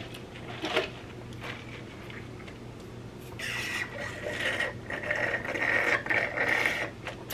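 Sucking a drink up through a straw from a fountain cup: an uneven slurping hiss with a thin whistling tone, starting about three and a half seconds in and lasting about three seconds. A few soft clicks come before it.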